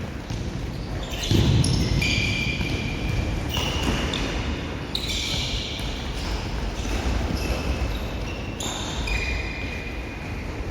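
Indoor futsal play: a thud of the ball about a second in, and many short sneaker squeaks on the court floor.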